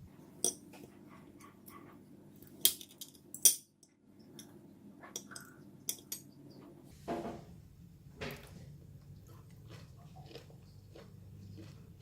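Scattered clinks and taps of a spoon against a plate or dish, with a few sharper knocks and short quiet gaps between them.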